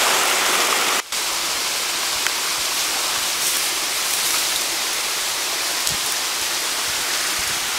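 Steady rush of a large waterfall: an even, constant hiss of falling water, breaking off for an instant about a second in.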